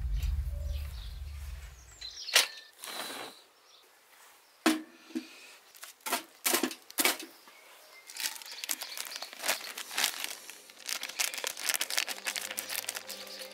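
A deep boom fades out over the first two seconds. Scattered sharp knocks and rustles follow, and from about eight seconds in a thin plastic bag crinkles as it is handled and cut open with scissors.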